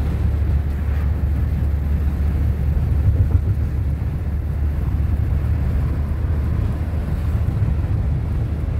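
Steady drone of a vehicle's engine and road noise from inside the cab while cruising at speed.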